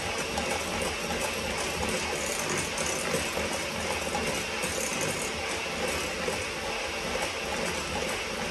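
Electric hand mixer running steadily, its beaters whipping egg whites with the egg yolks in a mixing bowl.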